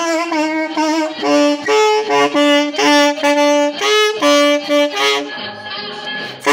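Saxophone solo, a run of short separate notes, over a recorded backing track with bass. The saxophone drops out about five seconds in, and a loud new note starts right at the end.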